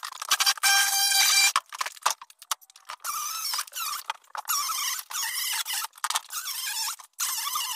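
Cordless power saw cutting through old floorboards: a high whine about a second in, then a run of short, harsh cuts, with knocks and clatter of wood pieces in between.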